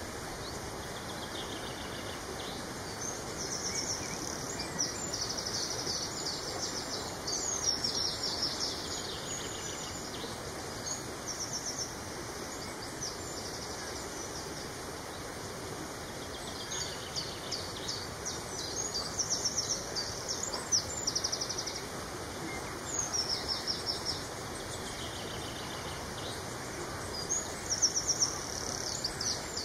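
Several kinds of small songbirds singing around a reedbed, in recurring phrases of fast, high-pitched trills and chirps over a steady outdoor background hiss.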